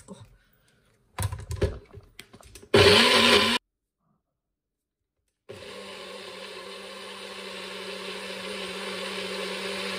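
NutriBullet blender blending coconut chutney. A few knocks as the cup is fitted on the base, then a short, very loud burst of the motor that cuts off abruptly; after about two seconds of silence the motor runs again, steady with a constant hum.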